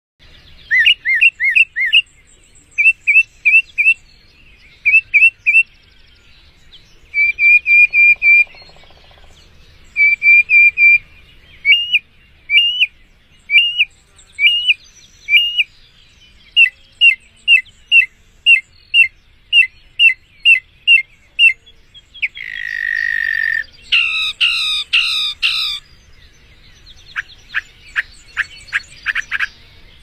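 Northern mockingbird singing: a string of varied phrases, each repeated several times in a row before switching to the next. A longer buzzy note comes a little past the middle, and a quick run of down-slurred notes near the end.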